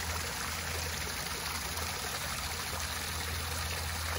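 Hot spring water running steadily into an outdoor rock-lined bath, a continuous even trickling rush.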